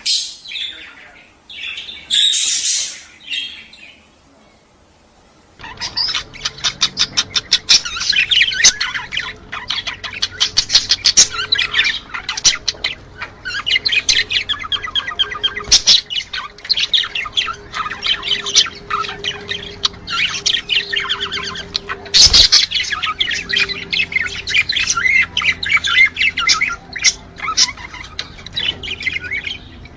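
Budgerigars calling: a couple of loud calls at first, then after a short pause a flock's fast, dense chirping chatter. This is budgie mating chatter, of the kind played to bring birds into breeding condition.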